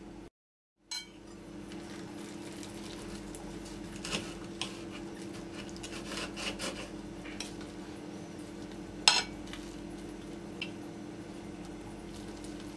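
Knife and fork cutting through baklava on a ceramic plate: scattered scrapes and clinks of metal cutlery against the plate, with one louder clink about nine seconds in, over a steady low hum.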